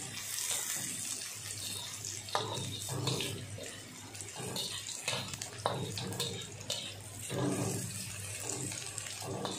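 Hot cooking oil sizzling steadily as onions, garlic and ginger fry in a wok, the onions turning golden before the chicken goes in.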